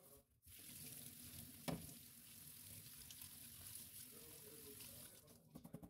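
Faint hiss of a kitchen tap running into a stainless steel sink while a steel-wool scourer and sponge are rinsed under it. A single knock comes about a second and a half in, and a few light clicks near the end.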